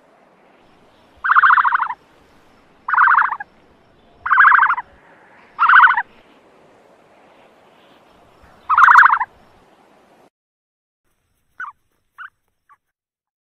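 Ostrich calls: five short buzzy calls, each about half a second long, spaced one to three seconds apart. After an abrupt cut near the end come a few faint brief chirps.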